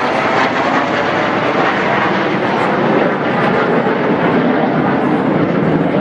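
Steady rushing jet noise from five Canadian Forces Snowbirds CT-114 Tutor jets flying overhead in formation.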